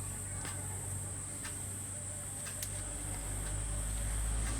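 A few faint, scattered clicks from handling a motorcycle rear brake master cylinder as its rubber boot is worked off. Under them runs a steady high-pitched whine and a low hum that grows slightly toward the end.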